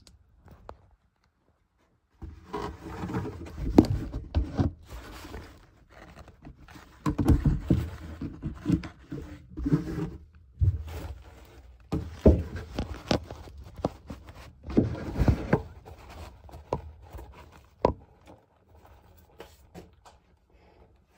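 Paper towels rustling and scraping, with scattered knocks, in irregular bouts a second or two long that come and go.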